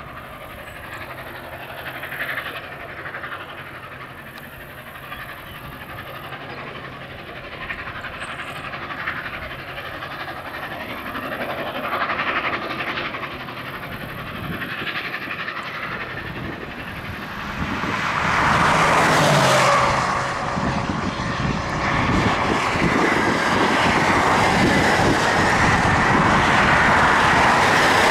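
Union Pacific 844, a 4-8-4 Northern-type steam locomotive, running at speed at the head of a long passenger train. Faint at first, it grows suddenly loud about two-thirds of the way in as it comes close, then stays loud as the cars roll by.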